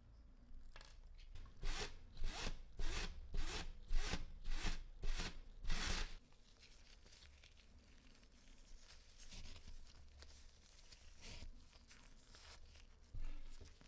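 A fine metal chain is drawn repeatedly across a wooden board, giving about ten zipper-like rasping strokes, roughly two a second, for the first half. After that comes quieter scraping and rustling as the chain is handled and rubbed with steel wool, with one short louder rasp near the end.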